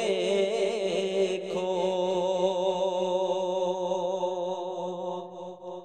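A solo voice singing a naat, drawing out the last syllable of a line ("dekho") as one long held note. The note wavers in pitch at first, then holds steady and fades out near the end.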